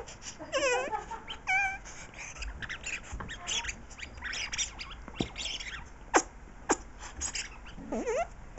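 Puppy chewing a rubber toy with its squeaker taken out, forcing air through it in short wavering, farty squeals: two in the first two seconds and a rising one near the end. Scattered sharp clicks of chewing in between.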